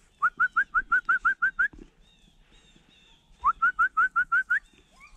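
Person whistling to beagles on a rabbit hunt: two quick runs of short, rising whistled notes, about seven a second, urging the dogs on.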